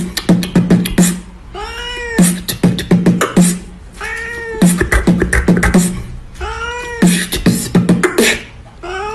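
A cat meowing in a steady loop, one rising-and-falling meow about every two and a half seconds. Between the meows comes a quick beatboxed rhythm of kicks and clicks, so the meows sit on the beat.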